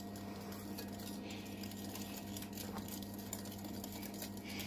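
Wire whisk stirring flour into cake batter in a glass bowl: soft scraping and many light ticks of the metal wires against the glass, over a steady low hum.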